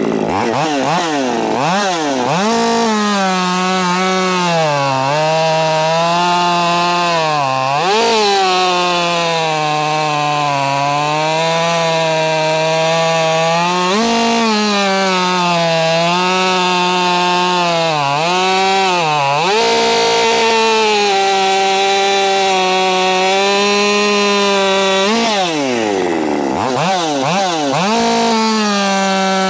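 Husqvarna 550 XP two-stroke chainsaw cutting rounds off a log at full throttle. Its pitch drops and holds lower each time the chain bites into the wood, then sweeps back up to a high rev between cuts, about five cuts in all.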